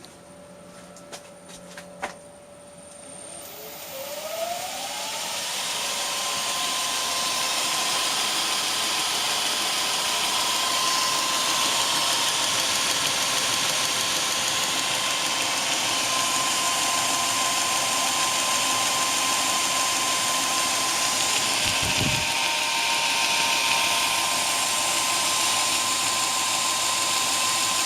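Shop-built 2x72 belt grinder, driven by a 1.5 kW motor through a variable-frequency drive, being sped up. A few clicks come first, then a motor whine rises in pitch over about two seconds and settles into steady running with belt hiss. A brief low thump comes near the end.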